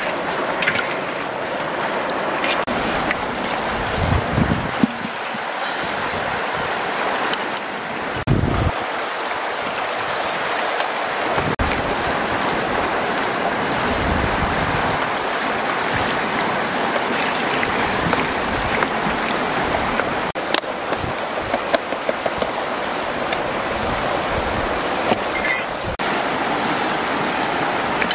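River water running steadily over rocks, with a few short low knocks from handling the wok.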